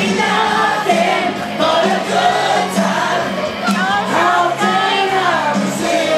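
A man singing loudly into a microphone over a rock backing track, with other voices singing along.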